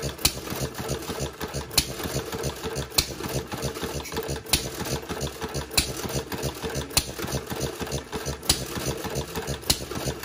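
Model Fuller & Johnson hit-and-miss gas engine running: a sharp pop from a firing stroke about every second and a quarter, eight in all, over a steady fast mechanical clatter as it coasts on its flywheels between firings.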